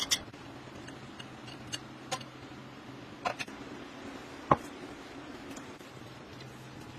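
A handful of light clicks and taps of kitchen utensils against a dish, the sharpest about four and a half seconds in, over a low steady hum.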